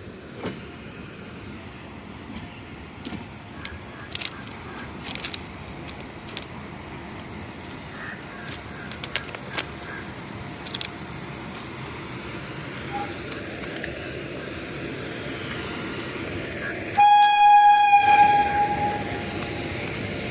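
Train rumble slowly growing louder as it nears, with scattered sharp clicks, then a WAG-9 electric locomotive's horn sounds one loud blast of about a second and a half near the end.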